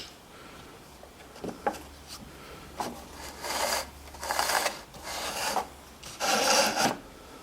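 A wooden jig being rubbed and slid by hand against the belt sander, with a few light knocks and then four rasping strokes of wood scraping.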